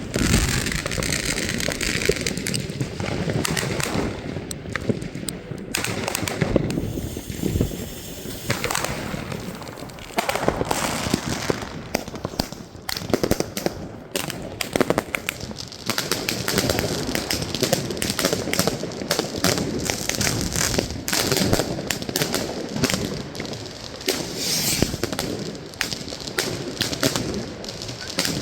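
Fireworks and firecrackers going off in a dense stream of bangs and crackling, easing briefly a few seconds in and again around the middle.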